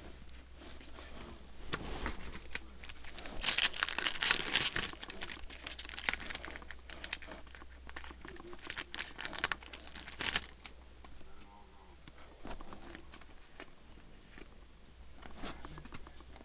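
Yu-Gi-Oh! booster pack's foil wrapper crinkling and tearing as it is opened, loudest in two stretches of a couple of seconds each. Trading cards rustle and slide against each other in between.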